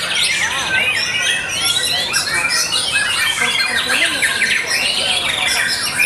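Caged white-rumped shamas singing hard, several at once: a dense, unbroken tangle of loud whistles, rapid trills and harsh notes.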